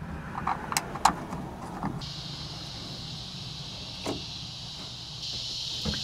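A few light clicks and knocks of a metal bracket being fitted into a truck bed, then from about two seconds in a steady high-pitched buzz that grows louder near the end.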